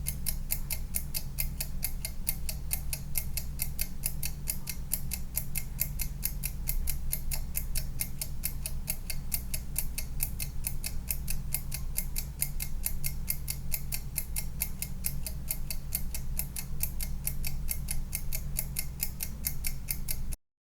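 Mechanical kitchen timer ticking rapidly and evenly over a low steady hum. The ticking cuts off abruptly near the end.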